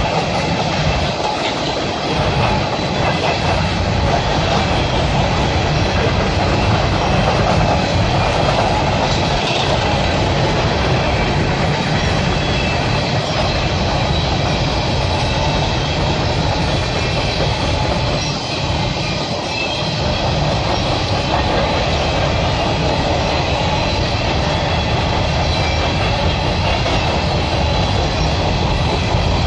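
Empty open-top coal cars of a long CSX coal train rolling past at track speed: a loud, steady rumble of steel wheels on rail.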